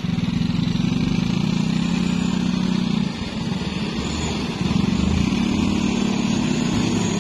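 Diesel dump truck engine labouring under load on a slippery muddy uphill; the engine note drops about three seconds in and picks up again about a second and a half later.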